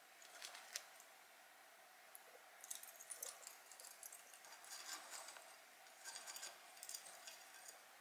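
Faint, irregular light clicking and scratching of budgies moving about on a wooden perch ladder: claws gripping and stepping on the wood, with some feather rustle. A couple of clicks come about half a second in, and a longer run of them follows from about three seconds.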